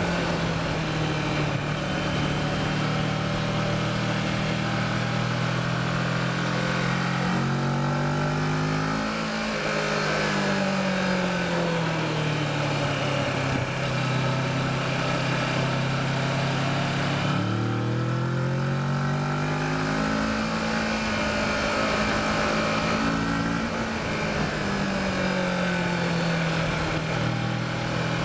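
Kawasaki Versys motorcycle engine pulling up a twisty road. Its pitch climbs under throttle and drops several times as the rider rolls off and shifts through the bends.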